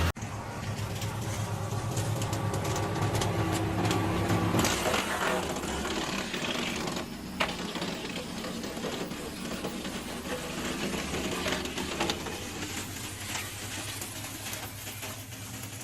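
Machinery running steadily with a fast mechanical clatter and scattered ticks. Its low hum drops back about five seconds in, and there is one sharp knock a couple of seconds later.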